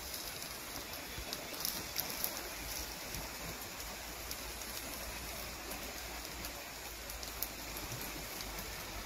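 Shallow stream running over its bed, a steady rushing, with a few sharp clicks scattered over it.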